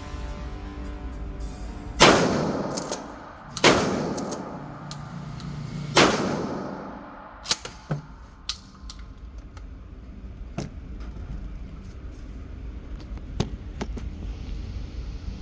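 Three shots from a Mossberg 88 12-gauge pump-action shotgun, the second about a second and a half after the first and the third about two and a half seconds later, each ringing out with a long echo. Several fainter sharp cracks follow.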